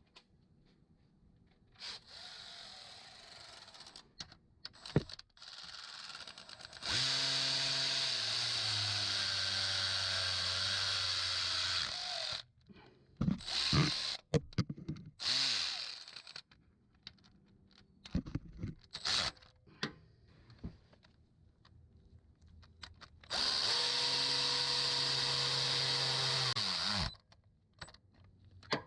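Power drill running bolts in as the front engine cover goes on: two long steady runs of about five and three and a half seconds, with a few short bursts between them. The motor's pitch drops once under load during the first run and winds down at the end of the second.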